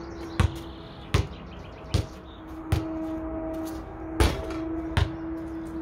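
Basketball dribbled, four bounces about three-quarters of a second apart. A shot follows: a louder bang as the ball strikes the hoop about four seconds in, then one more bounce. A steady hum runs underneath.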